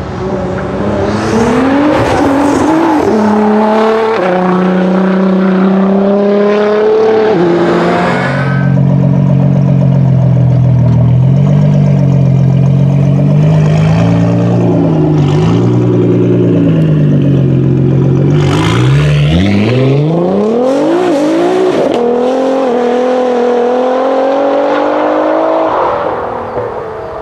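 Nissan GT-R R35's twin-turbo V6 accelerating hard, its pitch climbing in steps through the gear changes. It then holds a fairly steady pitch for several seconds, rises sharply again near two-thirds of the way through, pulls through more gears, and fades near the end.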